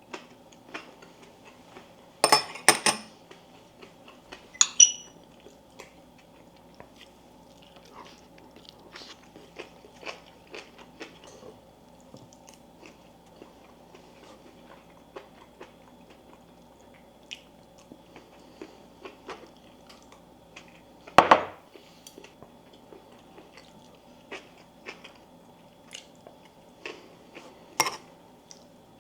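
A person eating at the table: chewing, with small clicks of chopsticks and a spoon against dishes and a few louder clinks and clatters, one ringing briefly, over a steady low hum.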